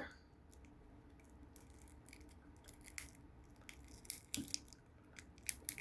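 Faint, scattered small clicks and taps, with more of them near the end: shards of a shattered phone screen's glass being handled and picked at.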